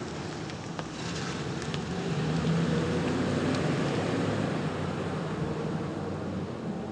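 Federal Signal Model 7 warning siren sounding a steady low tone during its test. Its loudness swells about two seconds in and eases off again toward the end.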